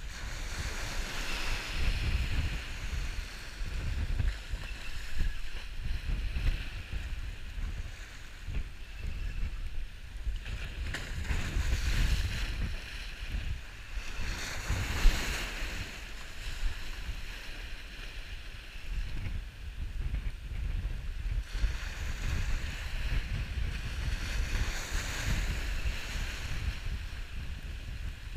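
Rough surf washing and breaking against a rock jetty, swelling and fading every several seconds, under strong wind buffeting the microphone. A single short knock about halfway through.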